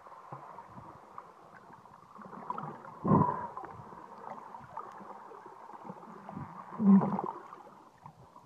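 Muffled underwater water noise picked up through a phone's waterproof case, with a faint steady hum. Two louder muffled thumps come about three seconds and about seven seconds in.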